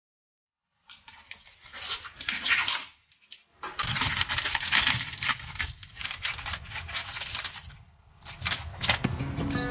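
Plastic packaging of imitation crab sticks crinkling and crackling as the pack is handled, opened and the sticks tipped out, in irregular bursts starting about a second in with a brief pause about three seconds in.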